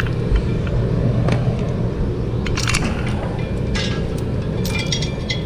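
An engine running steadily in the background with a low rumble, while metal parts clink and clank now and then as the heavy planetary gear set and its lifting eyes are handled.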